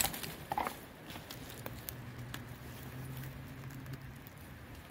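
Footsteps crackling and tapping through dry brush and debris, with scattered small clicks that are loudest in the first second. A faint low hum comes in about two seconds in and fades out two seconds later.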